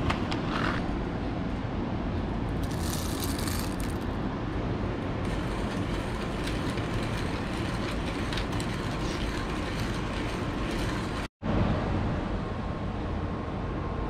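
A 1Zpresso hand coffee grinder being cranked, its burrs crunching through whole coffee beans in a fast crackle, over a steady rumble of wind and traffic. The sound drops out completely for a moment near the end.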